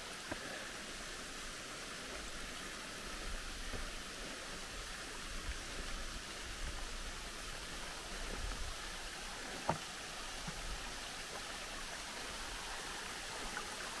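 Steady rush of water from the Butakovsky mountain waterfall and the stream below it, with a single sharp click about ten seconds in.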